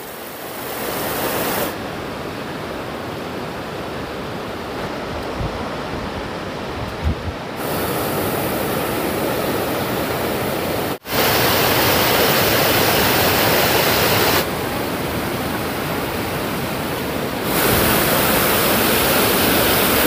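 Waterfalls rushing: a steady roar of falling water that shifts abruptly in loudness and tone several times, with a brief drop out about eleven seconds in.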